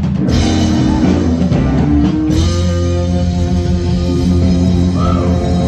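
Loud rock music with guitar, a steady stream of held chords.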